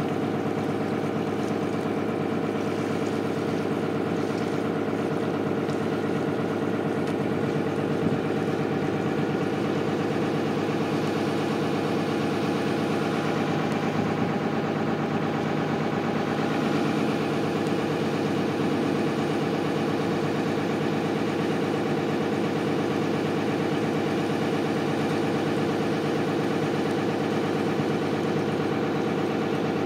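Boat engine running steadily at an even pitch.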